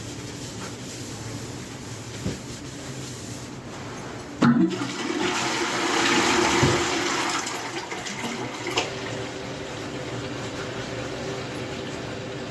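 Toilet flushing: a clunk about four and a half seconds in, then a rush of water lasting about three seconds, then the cistern refilling with a steady hiss.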